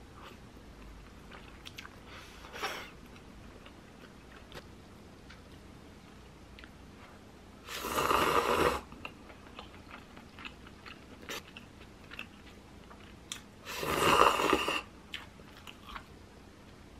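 Two loud slurps of instant cup-noodle soup sipped from the cup, each about a second long, one about eight seconds in and one about fourteen seconds in. Faint chewing and small clicks come between them.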